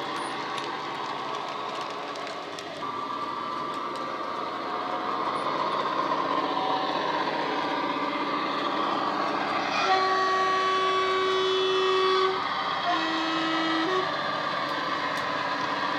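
Bachmann Class 57 model diesel's ESU LokSound decoder playing its diesel engine sound through an EM1 speaker, growing louder as the locomotive approaches. About ten seconds in, the Class 47/57 two-tone horn sounds: a long high note, a shorter low note, then a brief high note.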